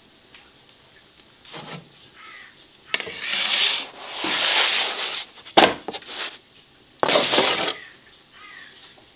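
A series of rough scraping strokes, faint at first, then four loud ones each up to about a second long, and a faint one near the end.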